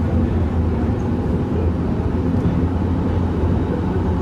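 Bombardier Innovia ART 200 light-metro train running at speed between stations, heard inside the car: a steady low rumble with no breaks or distinct knocks.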